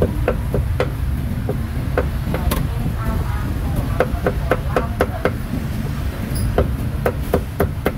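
Meat cleaver chopping on a wooden chopping block: quick runs of sharp strikes, about four a second, with short pauses between runs. A steady low rumble runs underneath.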